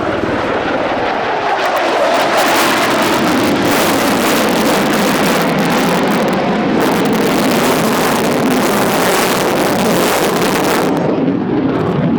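Twin-engine F-15SG fighter jet flying past, a loud, steady jet roar. Its high hiss falls away near the end.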